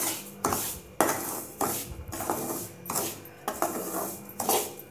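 Slotted metal spatula scraping against the inside of an aluminium kadai as semolina is stirred and roasted in ghee, about two strokes a second.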